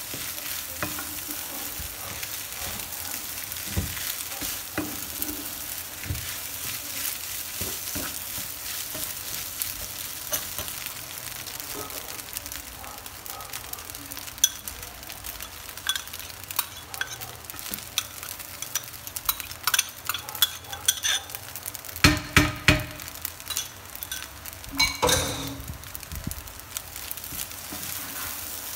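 Shrimp fried rice sizzling in a nonstick frying pan while it is stirred and tossed with a wooden spatula, with a steady hiss and small scrapes and clicks. In the second half come sharper knocks and clinks, loudest a little past the three-quarter mark.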